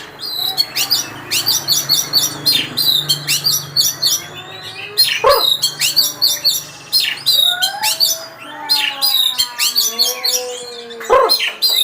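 Oriental magpie-robin (kacer) singing a fast, varied song of high chirps and trills in repeated phrases, broken by short pauses. Lower sliding whistles come in during the second half.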